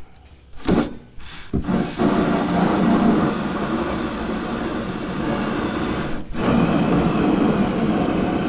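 Cordless drill turning a 3.5-inch Lenox hole saw in reverse against the steel floor of a pickup bed to score a groove before cutting forward. It gives a couple of short trigger pulls, then runs steadily with a high whine, broken by a brief stop about six seconds in.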